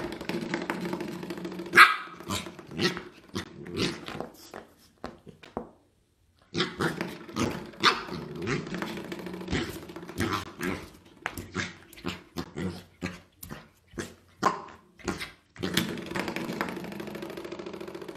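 Corgi puppy barking and yipping at a spring doorstop, which twangs with a steady humming buzz that fades each time it is flicked, three times. The barks are short and sharp, with some growling.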